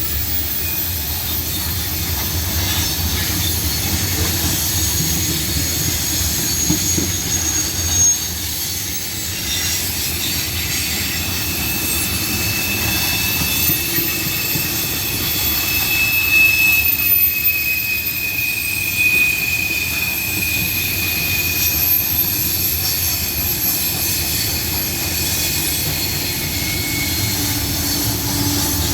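Freight cars of a grain train rolling past: a steady rumble of wheels on rail, with thin, high wheel squeals that come and go. One squeal is held for more than ten seconds in the second half.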